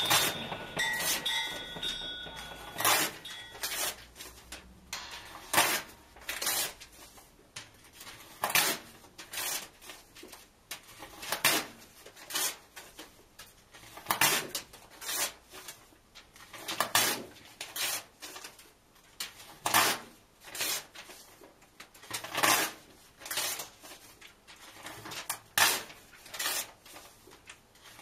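Book pages being ripped and torn in half by hand, sharp paper rips coming mostly in pairs, a pair about every three seconds.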